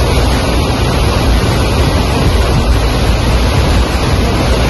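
Farm tractor's diesel engine running steadily as it drives through floodwater, under a steady rush of water and wind noise.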